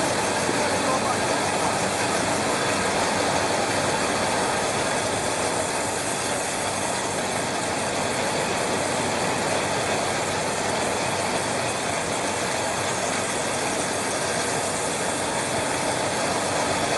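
Aerosol tin can vacuum leak tester running, a steady, unbroken mechanical noise.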